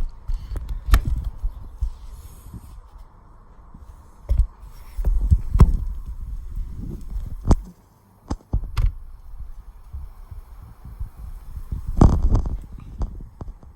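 Gusty wind buffeting the iPad's microphone in low, rumbling swells that come and go, with several sharp clicks and knocks among them.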